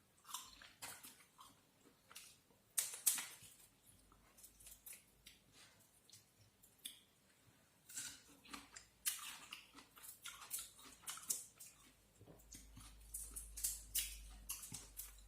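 Eating and handling seafood: irregular crackles, clicks and snaps of shells being broken and food being chewed, with a louder snap about three seconds in.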